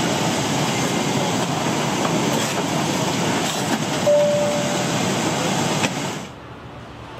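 Steady rushing noise of an airliner cabin: engines and air system, with a brief single tone about four seconds in. The noise drops away suddenly a little after six seconds.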